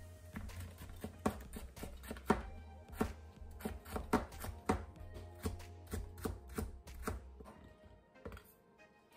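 Kitchen knife thinly slicing a carrot on a plastic cutting board: a run of even chopping strokes, about three to four a second, that stops near the end.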